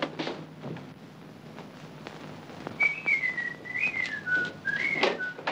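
A person whistling a tune, a single clear note line wandering up and down in pitch, starting about halfway in.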